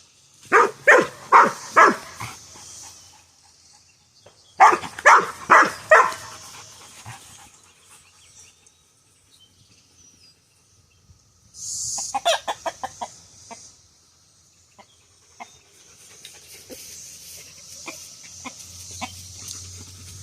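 Rooster clucking in loud runs of sharp calls: two runs of four or five calls in the first few seconds, a quicker rattling run a little past halfway, then scattered fainter clucks.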